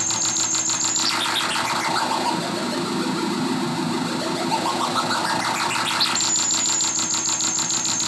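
Hand-built circuit-bent analog noise synth playing a loud, rapidly pulsing glitchy noise over a steady low drone. A high whine at the top drops away about a second in as the pitch sweeps down, then sweeps back up to it around six seconds in.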